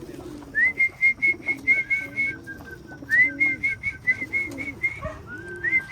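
Racing pigeons cooing again and again, with runs of quick, high, even whistled notes over them, three times.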